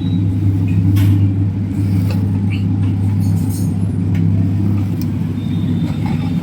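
Intex home theatre's bass speaker in FM mode giving out a loud, steady low hum, with a few faint clicks.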